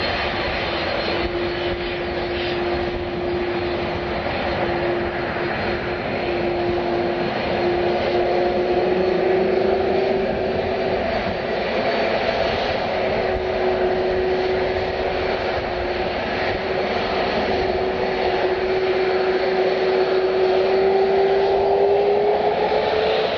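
Passenger jet's engines running: a steady rushing noise with a held whine that creeps up in pitch near the end.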